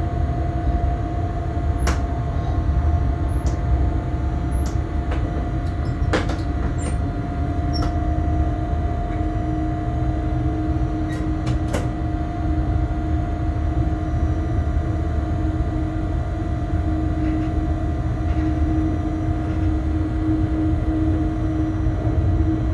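Cab of a Bombardier Traxx BR 186 electric locomotive on the move: a steady low rumble of the train running on the track, with steady humming tones, the lower of which grows stronger about nine seconds in. A few sharp clicks sound in the first half.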